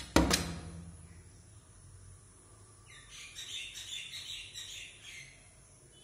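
A woodpecker knocks on window glass at the start, a few sharp taps in quick succession, the loudest leaving a short low ring in the pane. From about three seconds in comes roughly two seconds of scratchy, chattering bird calling.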